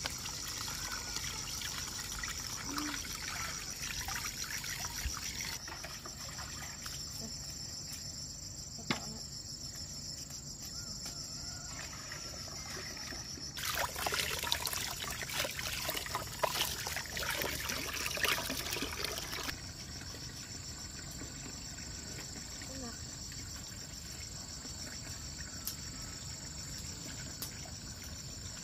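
Water trickling from a pipe into a plastic basin as a plucked duck is rinsed in it, with a louder stretch of splashing and running water for about five seconds halfway through. Insects chirr steadily in the background.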